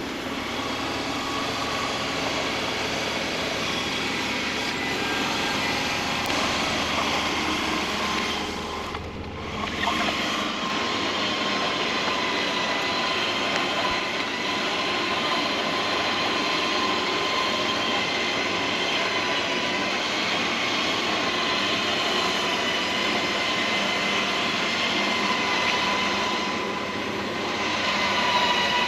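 Harbor Freight Apex Badland 12000 lb electric winch whining steadily as it spools the line in under load to pretension it. The whine drops away briefly about nine seconds in, then picks up again.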